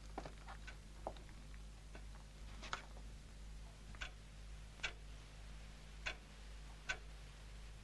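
Faint clock ticking, about one tick a second, with the gaps alternating slightly shorter and longer, over a steady low hum.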